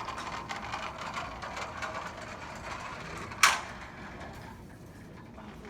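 Mousetrap-powered car mechanism clicking and rattling as it is set going, with one sharp snap about three and a half seconds in.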